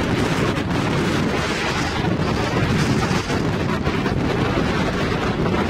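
Strong storm wind buffeting the camera microphone in a steady, heavy rumble.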